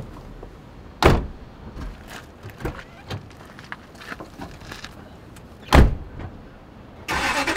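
Pickup truck doors shut twice, a hard slam about a second in and another near six seconds, with small clicks and rustling of people climbing in between. Just before the end, the first-generation Toyota Tundra's engine starts.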